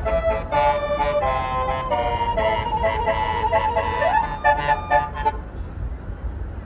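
Basuri multi-note telolet bus horn playing a quick tune of short, changing notes, with one rising glide near the end of the tune. It stops about five seconds in, leaving a low rumble.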